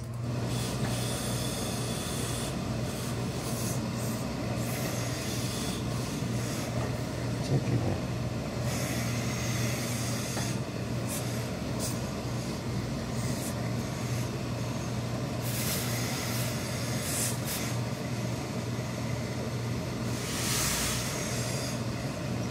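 Industrial steam iron pressing wool suit trousers, releasing steam in several short hisses over a steady low machine hum.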